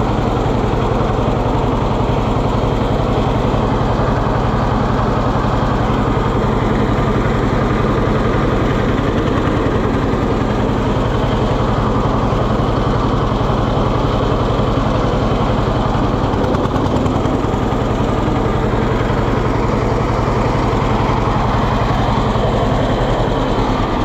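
Tractor engine running at a steady speed, an even low beat throughout.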